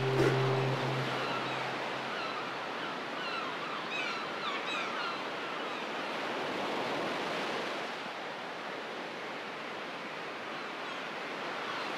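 A ship's deep horn fades out over the first couple of seconds, leaving a steady wash of sea and waves. A few faint, short, high chirping calls come about four seconds in.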